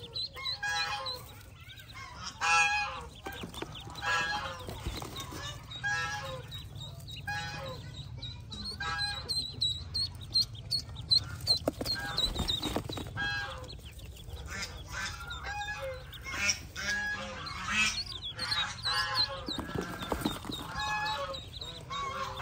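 Pekin duck quacking loudly and repeatedly, about once a second, with ducklings peeping high and thin in between.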